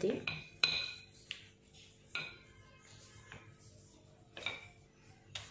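A wooden rolling pin rolling out thin puri dough on a stone counter, with about seven sharp, irregular clinks that ring briefly as it knocks and shifts under the hands. A faint steady hum lies underneath.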